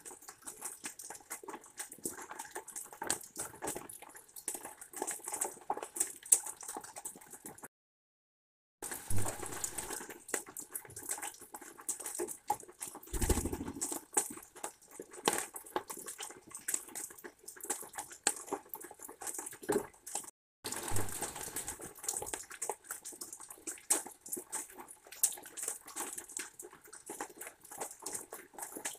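Rain dripping and pattering on a wooden feeder tray and deck: a dense, uneven run of small ticks, with a few low thumps, the strongest about 13 seconds in. The sound cuts out for about a second twice.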